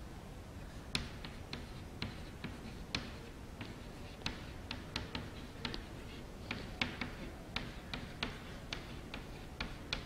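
Chalk tapping on a chalkboard as a sentence is written by hand: a string of sharp, irregular taps, two or three a second, starting about a second in.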